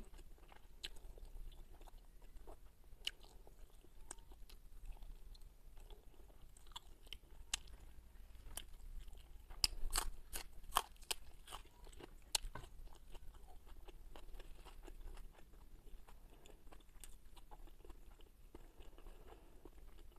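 Close-up chewing and biting of fried carp, with scattered small crunches. About halfway through comes a run of louder, sharp crunches as a fresh green onion stalk is bitten.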